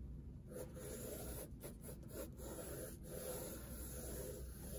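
Pencil scratching faintly on sketchbook paper as a large oval is sketched.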